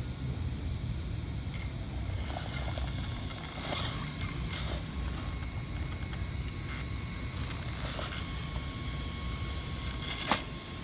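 Electric motor and gears of an Axial SCX10 RC rock crawler running under load with a faint high whine as it climbs over concrete blocks. Scattered knocks of tyres and chassis on the concrete, the sharpest about ten seconds in.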